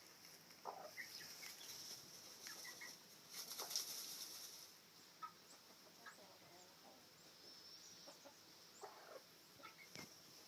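Silkie hen giving soft, faint clucks while her chicks peep in short high chirps, with a brief rustle about three and a half seconds in.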